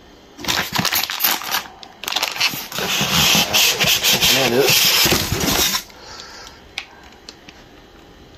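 Packing material being handled: plastic-bagged ink cartridges and a foam packing tray rustling and rubbing, in two loud stretches, a short one about half a second in and a longer one from about two to six seconds.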